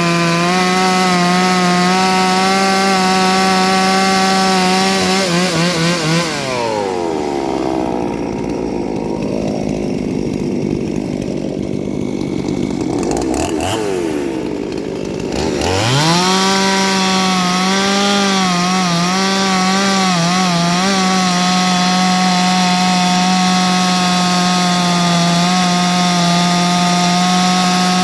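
Ported two-stroke chainsaw running at high revs. About six seconds in its engine speed falls away, and about ten seconds later it climbs back to full speed and holds there.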